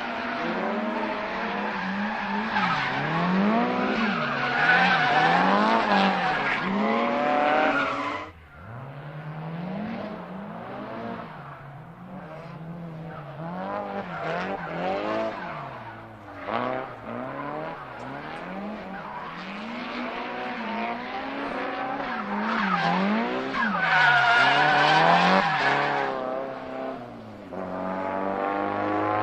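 Turbocharged Nissan Silvia S15 engine revving up and down over and over, its pitch rising and falling roughly once a second, with a sudden drop about eight seconds in before it picks up again.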